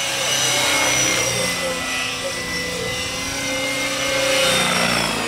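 Radio-controlled model helicopter flying overhead, giving a steady high whine that swells louder twice as it passes.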